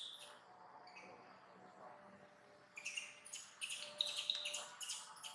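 Small birds chirping in quick runs of high notes: a brief chirp at the start, a lull, then a busier run of chirps from about three seconds in.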